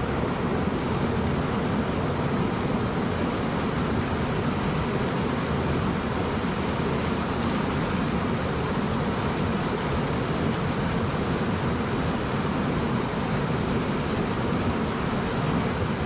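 Mountain stream rushing over boulders in a small whitewater cascade: a steady, even rush of water.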